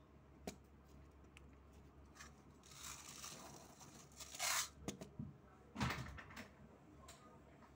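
Small dark stone grains poured from a plastic cup onto paper, a gritty rattling pour about three seconds in and a louder one about four and a half seconds in, followed by a knock on the table near six seconds.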